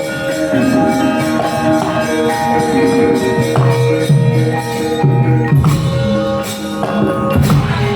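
Javanese gamelan playing wayang kulit accompaniment: tuned bronze metallophones and gongs ringing in overlapping sustained notes. Two sharp strikes cut through near the end.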